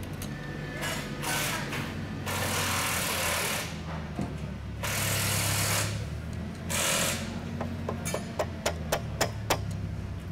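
Sharp metal taps, a quick series of several a second near the end, as a hammer drives a punch against the eccentric lock collars to lock them onto the shaft bearings. Before them come several louder bursts of hissing noise, each about a second long.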